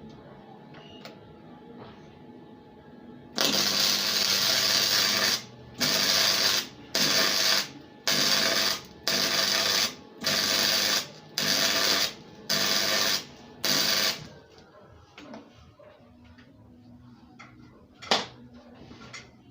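Arc welding on the motorcycle frame in a series of short welds: a crackling bead of about two seconds, then eight shorter crackling bursts of under a second each, stopping about fourteen seconds in. A single sharp click comes near the end.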